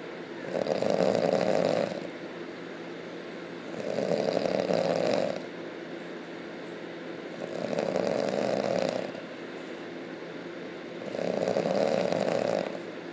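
A person snoring loudly: four long snores, each lasting over a second, come about every three and a half seconds, with quieter stretches between them.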